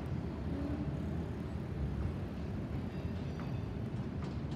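Low, steady rumble of a Boeing 737-800 jet airliner with CFM56-7B engines passing high and far off overhead.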